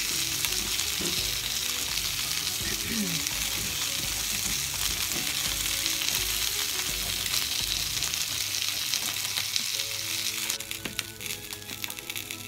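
Salmon fillets frying skin side down in oil in a ridged grill pan, a steady sizzle as the skin crisps. The sizzle drops away about ten seconds in, when soft background music comes in.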